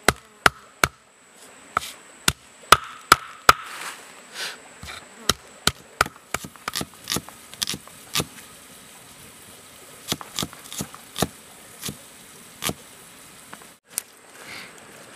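Sharp knocks of a stone pestle pounding chilies on a stone slab, strokes about half a second apart, then quicker, lighter knife chops through an onion onto a wooden board.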